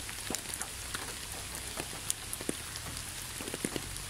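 Steady rain ambience, with scattered sharp ticks of individual drops.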